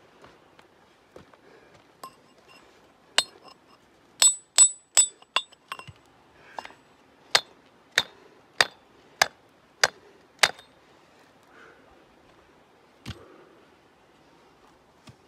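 Hammer striking rock in a series of sharp blows, some with a short high metallic ring, as the rock around a hole is chipped away. In the middle a steady run of about one blow every half second or so, then a few scattered strikes near the end.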